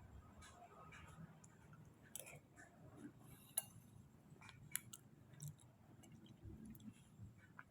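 Faint chewing of soft stewed sweet potato, with scattered small mouth clicks and light ticks.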